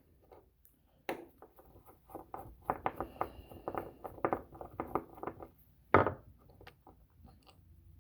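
Small clicks, taps and scrapes of a small weed-eater carburetor's cover being worked loose and popped off by hand, with one sharper click about six seconds in.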